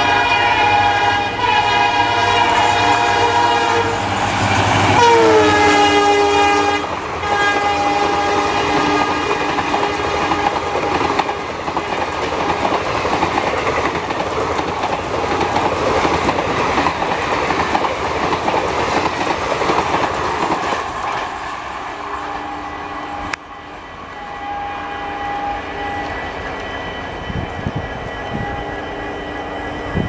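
EMD WDP4B diesel locomotive's horn blaring continuously in several tones as the express approaches at speed, its pitch dropping about five seconds in as the locomotive passes. The passenger coaches then rush past with wheels clattering over the rail joints, the noise fading as the train recedes, and the horn sounds again faintly in the distance near the end.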